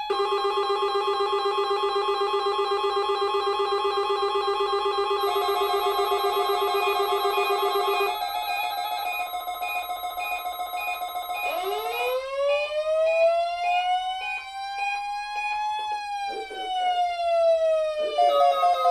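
Several electronic alarm tones sounding together, steady and warbling. About two-thirds of the way through, a siren tone rises in pitch, peaks, and falls away, and near the end a new pulsing alarm tone starts.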